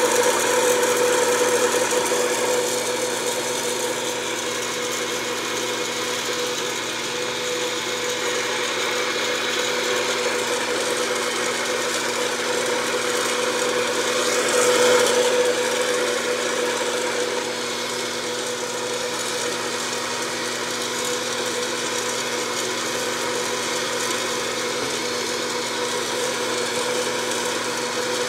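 Steady whirring hum of a small electric motor, a little louder at the start and again about halfway through.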